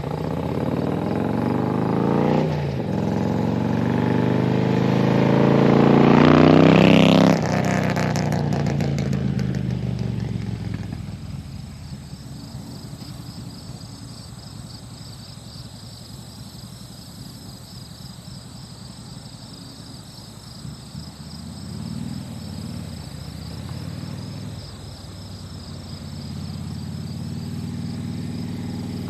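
Harley-Davidson Electra Glide Classic's V-twin engine revving up, its pitch and loudness climbing for several seconds before dropping off abruptly about seven seconds in as the throttle closes. It then runs quieter, and its pitch rises again near the end.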